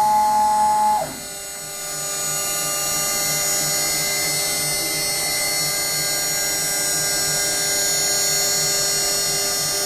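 CNC router running: a steady electric whine from its motors as the gantry moves. The pitch slides down and the sound drops about a second in, then it rises again and settles into a steady whine of several tones.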